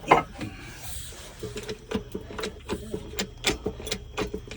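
A sharp metallic knock, then a ratchet wrench clicking in an even run of about four clicks a second.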